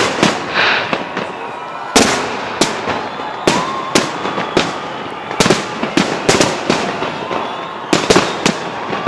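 Fireworks display going off: an irregular run of sharp bangs and pops, about two a second, some in close pairs.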